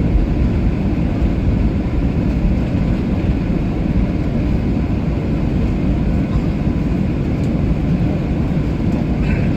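Airliner cabin noise heard from a passenger seat: the jet engines and airflow making a loud, steady low rumble that does not change.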